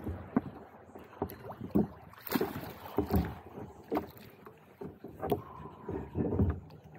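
Water slapping and splashing against the hull of a plastic fishing kayak while a hooked sheepshead thrashes at the surface alongside, with irregular knocks and low thumps.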